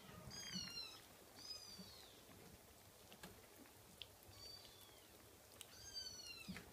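Scottish fold kitten mewing: four short, thin, high-pitched mews, each falling in pitch at its end, the third fainter. A few faint clicks come in between.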